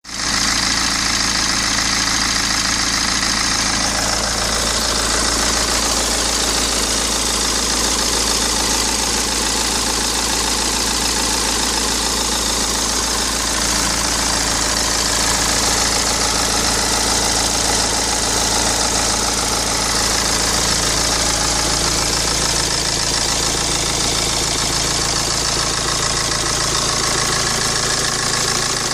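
BMW 116d's N47 2.0-litre 16-valve diesel engine idling steadily at standstill, with a timing-chain noise from the engine that the owner takes for the known N47 timing-chain fault.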